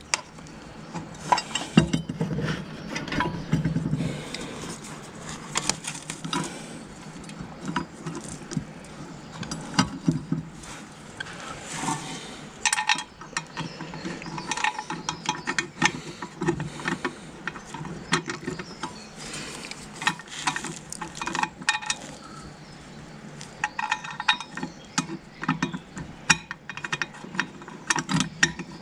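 Irregular metallic clicks and clinks of hand tools and steel brake-linkage parts being handled and fitted under a vintage Fordson Major tractor, with scattered ratchet-like clicking.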